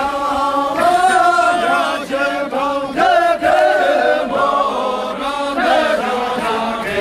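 A group of Sherpa dancers singing a sherbu (shyabru) line-dance song together in a chant-like unison, phrase after phrase.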